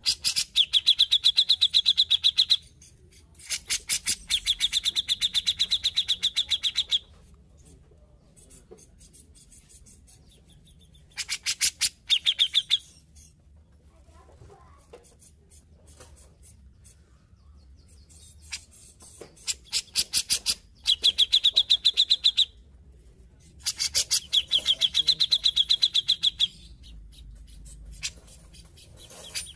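Cucak jenggot (grey-cheeked bulbul) singing: five bursts of rapid, chattering trills, each two to three seconds long, with pauses between them.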